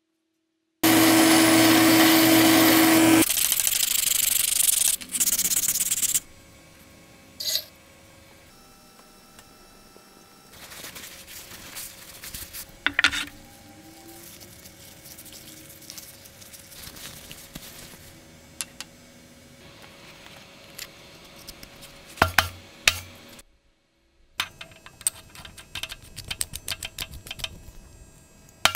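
Workshop tool noises: a loud power tool runs for about two seconds with a steady hum, then scraping and rubbing with scattered taps and knocks, and a run of quick light clicks near the end.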